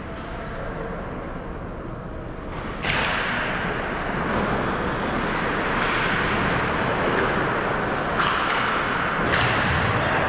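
Ice hockey play at the boards: skates scraping and carving on the ice, with sharp clacks and knocks of sticks and puck. The loudest knock comes about three seconds in, after which the play gets louder, and a few more sharp cracks come near the end.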